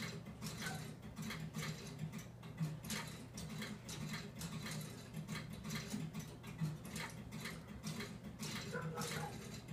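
CTC machine's relay code equipment clicking quickly and irregularly as a signal route is coded and cleared, over a steady low hum.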